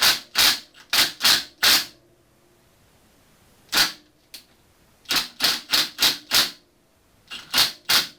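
Hammer blows on a seized steel engine mounting bolt and its nut, sharp metallic strikes with a short ring, in quick runs of several blows about a third of a second apart.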